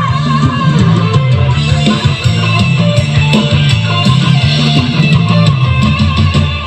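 Music with guitar and a strong, stepping bass line, played loud through a home-built three-way speaker box (8-inch subwoofer, 6.5-inch midrange, two 4-inch tweeters) driven by a D10-II mini Bluetooth bass amplifier.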